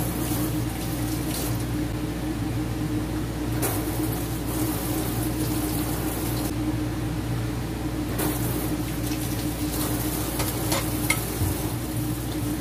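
Steady motor hum with a constant hiss, like a kitchen appliance or fan running, with a few light clicks and taps scattered through it as food is placed into a bowl.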